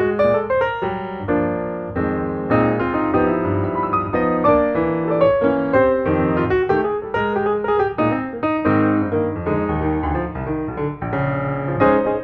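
Background piano music, a steady flow of quick notes over held chords.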